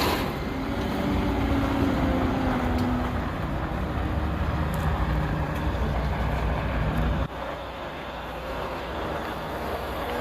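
Motor vehicle on the move: a steady low engine and road rumble that drops sharply about seven seconds in.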